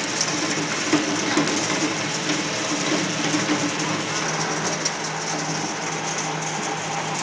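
Single-shaft shredder running while it chops copper cable, a steady motor hum under a dense clatter of metal fragments knocking around the cutting chamber.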